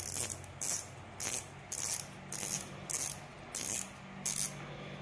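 Shimano Stradic 2500HG spinning reel's spool being pushed round by thumb, its front drag clicking in about eight short ratcheting bursts, roughly one every half second.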